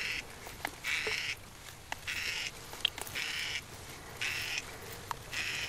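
Hand-pumped backpacking water filter being worked, drawing water through its intake hose: a wet hiss with each pump stroke, about one stroke a second, with small clicks between strokes.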